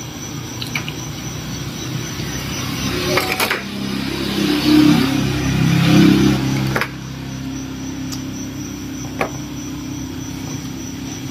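A road vehicle's engine passes close by, growing louder over a few seconds and loudest about five to six seconds in, then dropping off abruptly. A steady low hum and a few faint clicks remain.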